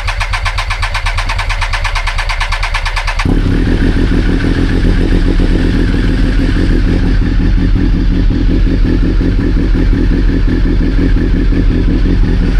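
Triumph Daytona 955i's fuel-injected inline three-cylinder engine being started: the starter cranks it for about three seconds, then it catches and keeps running steadily.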